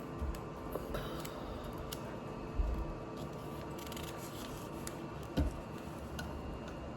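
Plastic LEGO pieces being handled and fitted together: scattered light clicks and taps, with two soft low thumps, over a steady low room hum.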